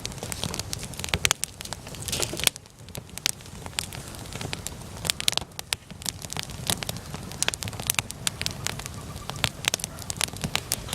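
Wood campfire burning in a fire pit, crackling with many irregular sharp pops over a steady low rumble of the flames.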